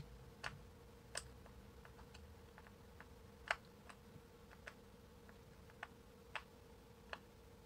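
Faint, irregular clicks and ticks of a small screwdriver turning out the tiny Phillips screws in the plastic hinge of Skullcandy Crusher Wireless headphones, with one sharper click about three and a half seconds in. A faint steady hum runs underneath.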